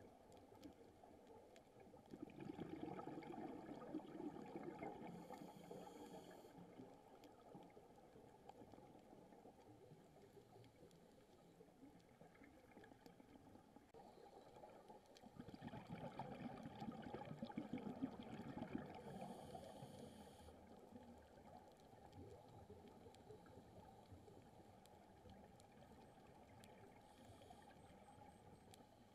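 Faint, muffled underwater sound heard through a camera housing, with two long swells of bubbling rumble about thirteen seconds apart: a scuba diver exhaling through the regulator, with the bubbles hissing briefly at the end of each breath.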